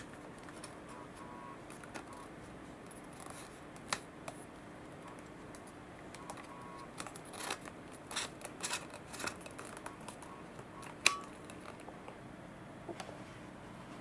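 Plastic and aluminium kayak paddle parts being handled and fitted together: scattered light clicks and rattles, a run of them about halfway through and one sharper click a few seconds later.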